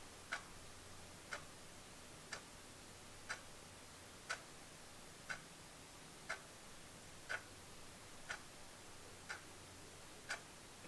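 Clock ticking steadily, one sharp light tick about every second over faint room tone.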